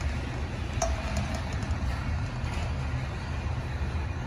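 Covered grain hopper cars of a freight train rolling past on the rails, a steady low rumble. About a second in comes a sharp metallic clank with a short ringing tone.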